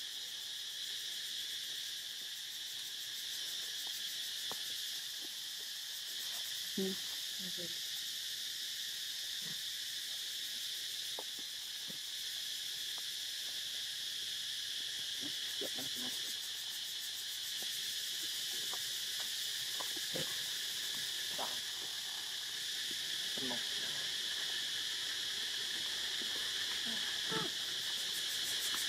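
Steady, high-pitched drone of insects that does not let up, with a few brief, faint sounds scattered through it.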